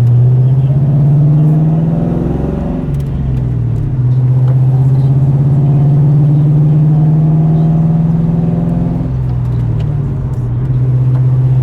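2001 Ford Mustang GT's 4.6-litre V8 engine pulling under acceleration. Its pitch climbs, then drops at a gear change about three seconds in and again about nine seconds in, shifted with a freshly installed short-throw shifter.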